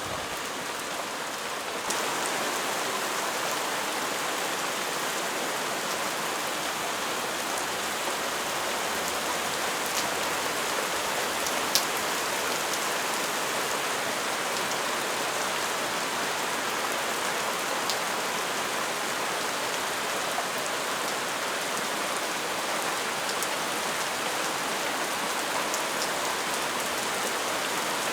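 Rain pouring down steadily in a thunderstorm shower, getting a little louder about two seconds in, with a few sharp taps of single drops.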